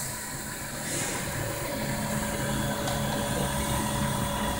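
Dual-extruder 3D printer running mid-print: a steady mechanical hum with several held tones over a hiss.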